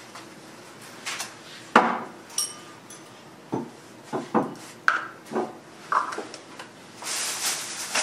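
Glassware and other shopping being handled and set down in a kitchen: a series of knocks and clinks, the loudest about two seconds in with a brief glassy ring. A denser rustle, like a plastic bag or packaging being handled, starts near the end.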